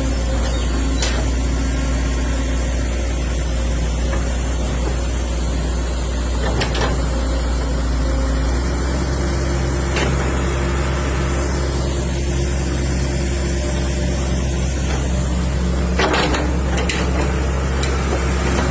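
Diesel engine of a Cat E120B hydraulic excavator running steadily, its note changing about eight and a half seconds in, with a few sharp knocks or clanks.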